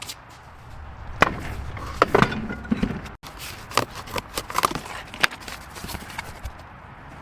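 A series of irregular sharp knocks and taps, like hand work on metal and wood, with a brief break about three seconds in.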